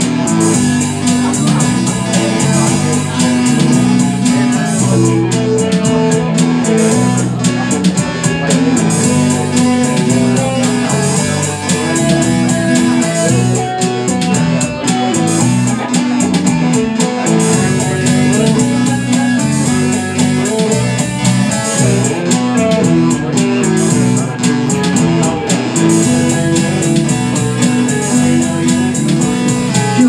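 Live rock band playing an instrumental passage: electric guitar, bass guitar and synthesizer over a steady beat.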